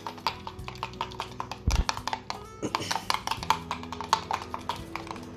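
A metal spoon clicking rapidly against a ceramic bowl while beating an egg, over background music.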